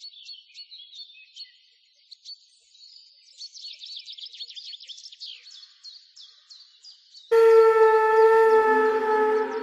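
Birds chirping in quick, repeated high calls. About seven seconds in, a loud, sustained horn-like wind-instrument tone starts abruptly and drowns them out.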